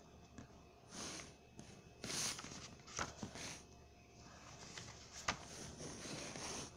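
Handling noise from a phone being moved about against surfaces: soft rustling swishes, with a few sharp clicks and bumps, the clearest about five seconds in.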